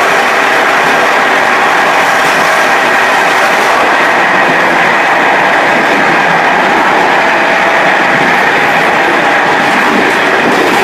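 A Czech Railways rapid train running at speed, heard from the rear of its last coach: a loud, steady rush of wheels on rail.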